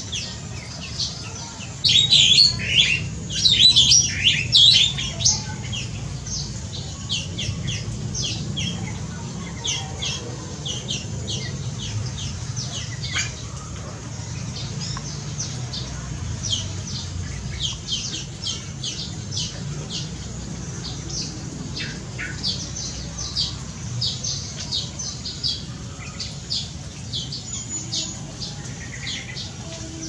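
Many aviary birds calling at once: a dense run of short high chirps and squawks, loudest for a few seconds near the start, with a faint steady low hum underneath.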